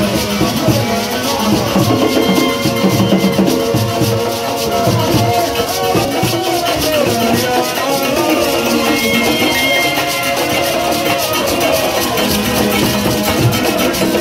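Live church praise music: voices singing into microphones over drums and a shaker that keeps a steady, fast beat.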